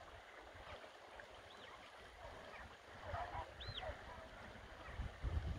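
Wind buffeting the microphone, with faint high whistled calls that rise and fall, heard three times about two seconds apart. The wind gusts louder near the end.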